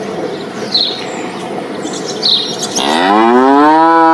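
Cow mooing: one long moo that begins about three quarters of the way in, rising in pitch and then held steady. Before it there is a rustling background with a few short bird chirps.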